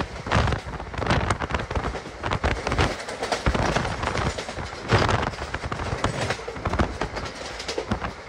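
Passenger train in motion: irregular sharp clattering and knocks from the running gear over a steady rush of wind and rail noise.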